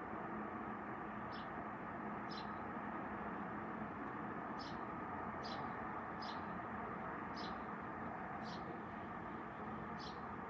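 A small bird chirping: short, high chirps repeated about once a second, over a steady background hum of outdoor noise.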